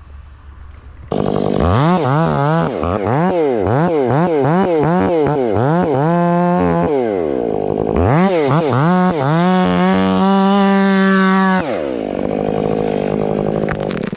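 Stihl MS 500i fuel-injected two-stroke chainsaw: the engine is blipped up and down about twice a second, then held at high revs for a few seconds and let back down to a lower steady idle near the end.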